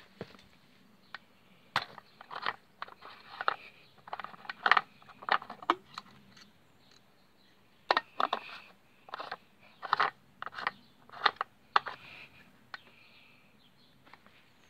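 Irregular plastic clicks, knocks and scrapes as hands work the fuel cap of a Stihl FS 40 string trimmer. The sounds come in two spells of handling.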